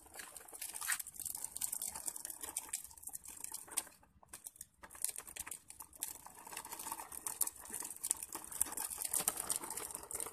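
Small plastic wheels of a child's ride-on push car crackling and rattling over rough asphalt, with a short break about four seconds in.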